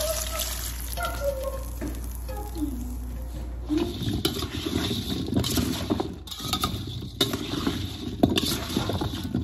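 Melted garlic butter poured over small potatoes in a stainless steel bowl. From about four seconds in, the potatoes are tossed and stirred with a utensil, a steady busy clatter and scrape against the metal bowl.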